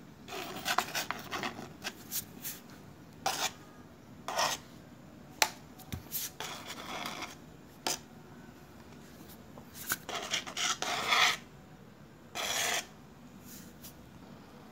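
Irregular bursts of scraping and rubbing, each under a second to about a second long, with a few sharp clicks in between.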